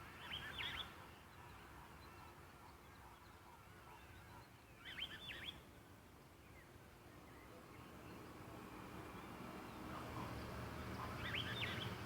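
A bird giving three short, quick calls of a few rapid notes each, spaced about five to six seconds apart.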